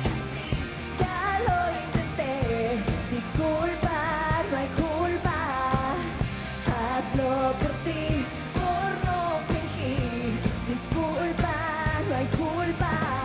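Live pop-rock band music: a singing voice with wavering, held notes over a steady drum beat and bass.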